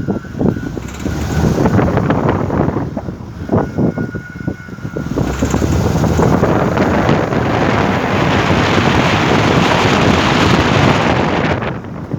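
Toyota 2NZ-FE four-cylinder engine running with an irregular knocking, which the owner puts down to a worn VVT-i camshaft coupling. About five seconds in, a loud steady rushing noise takes over and drops away near the end.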